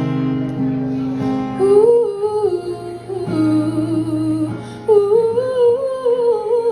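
Live song: a singer's wordless vocal line over acoustic guitar chords, struck at the start and again about halfway through.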